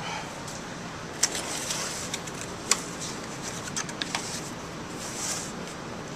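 Cardboard product box being opened and its foam insert lifted out: a few sharp taps and clicks and a brief rustle near the end, over a steady background hiss.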